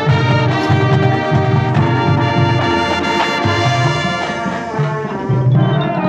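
Marching band playing, the brass section holding full chords over a low bass line that pulses in short repeated notes.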